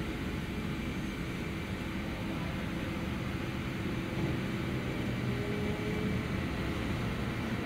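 Jet airliner engine noise at an airport: a steady low noise with faint steady tones, rising slightly about four seconds in.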